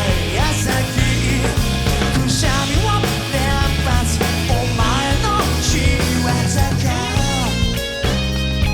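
Rock band playing live at full volume: drums, bass and guitars, with a lead line bending up and down in pitch through most of the passage and settling into held chords near the end.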